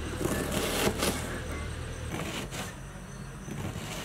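Kitchen knife cutting into a raw red onion on a plastic cutting board: a few short, crisp slices at irregular intervals. A low steady hum runs beneath and stops about halfway.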